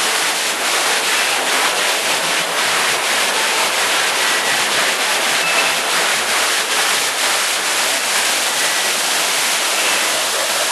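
Steady rush of water from an indoor artificial waterfall.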